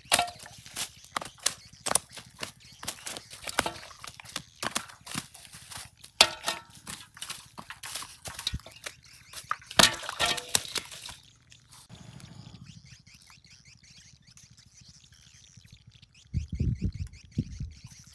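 A freshly caught fish flopping and slapping on dry leaves and dirt: a fast, irregular run of slaps and leaf rustles that stops about eleven seconds in. Near the end come a few low thumps as the fish is pressed down by hand.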